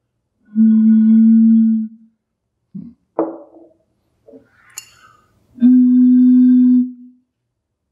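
Glass bottles partly filled with water, blown across the mouth one at a time, each giving a steady tone a little over a second long. The second tone, from a bottle with more water and so less air inside, is slightly higher than the first.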